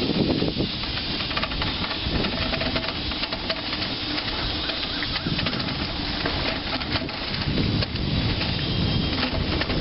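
Bicycle rolling fast down a rough concrete path: a steady hiss and rumble from the ride, with many small rattling knocks as the bike goes over the bumps.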